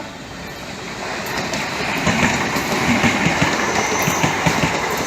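A train running past, its wheels clacking rapidly over rail joints. The rumble swells during the first two seconds as it draws near, then holds loud and steady.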